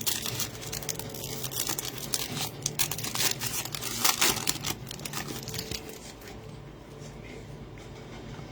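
Crinkling and tearing of a Prizm football card pack's wrapper being ripped open and pulled off. The dense crackling lasts about six seconds, then eases off.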